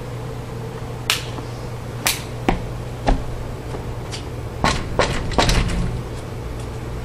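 Knocking on a glass storm door: a series of sharp raps, a quicker cluster of knocks about five seconds in, over a steady low hum.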